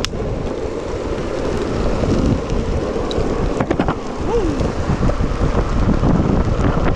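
Wind rushing over the camera's microphone during a fast downhill skateboard run, a steady loud roar mixed with the rumble of the skateboard's wheels rolling on asphalt. A few brief clicks come a little past halfway.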